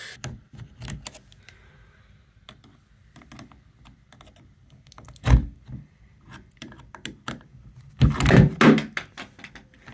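Door knob hardware being handled and worked: light clicks and rattles, one heavy thunk about five seconds in, and a clatter of knocks near the end. The knob's mechanism is broken and does not pull back the latch.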